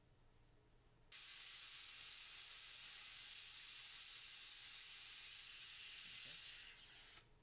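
Steady high hiss of dental air or suction at the opened molar's pulp chamber, starting abruptly about a second in and fading out near the end.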